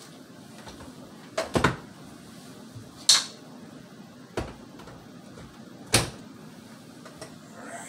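A few short knocks and clunks from a countertop blender's jar and lid being handled and set on the base, about four spread over several seconds. The motor is not running.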